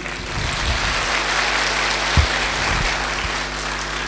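An audience clapping in a hall, the applause building just after the start and tapering off near the end, over a steady electrical hum.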